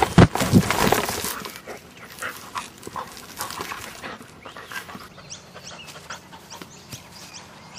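A black dog panting as it runs across grass, with a loud jumble of knocks and rustling in the first second or so.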